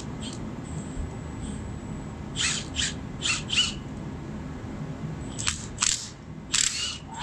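Cordless drill run in short bursts against metal, each burst a brief high-pitched screech: four in quick succession, then three more near the end.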